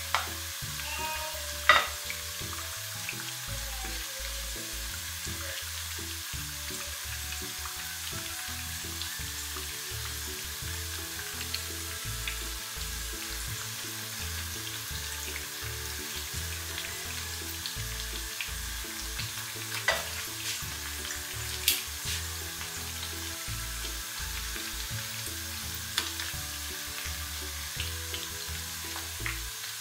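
Banana fritters in batter deep-frying in hot oil in a wok, with a steady sizzle throughout. A few sharp clicks of a silicone spatula and tongs knock against the pan, the loudest near the start and about two-thirds of the way through.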